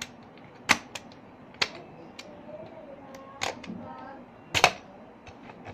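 Plastic buttons on a multi-function pencil box clicking as its spring-loaded flaps and compartments pop open. There are about five sharp clicks spread across the seconds, and the loudest is a quick double click near the end.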